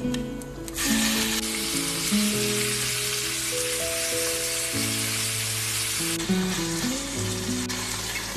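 Raw boneless chicken pieces dropped into hot oil with cumin seeds in a nonstick pan start sizzling about a second in, then frying steadily; the sizzle eases a little after six seconds. Background music plays throughout.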